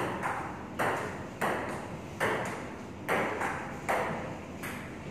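Table tennis rally: the ball clicking sharply off the bats and the table, about six loud knocks less than a second apart with quieter bounces between, each trailing off briefly.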